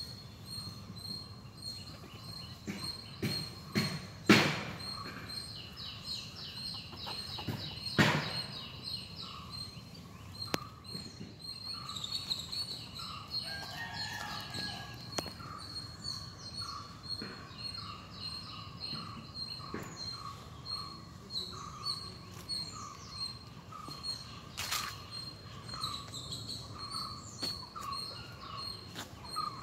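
Garden birds calling and chirping, one short call repeating about once or twice a second, over a steady high-pitched insect buzz. Two sharp knocks stand out, about four and eight seconds in.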